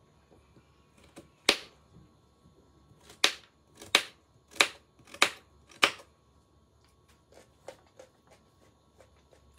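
A series of sharp knocks in a small room: one loud strike, then five more about two-thirds of a second apart, followed by fainter clicks.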